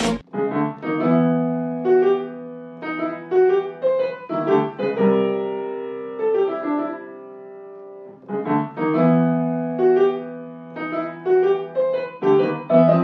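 Background piano music: a slow, simple melody of struck notes with a chordal bass. The phrase is played through once, pauses briefly, then starts again.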